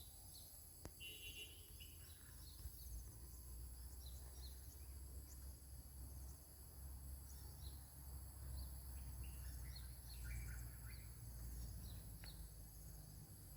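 Faint tropical forest ambience: a steady high-pitched insect drone, with scattered short bird chirps and a brief rapid trill about a second in, over a low rumble.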